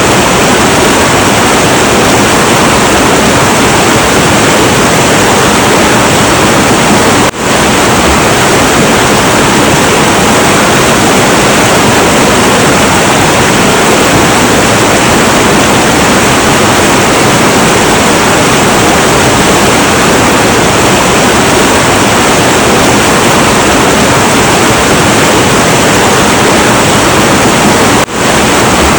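Heavy, turbulent river water rushing in a dense, steady roar. The level dips briefly twice, about seven seconds in and near the end.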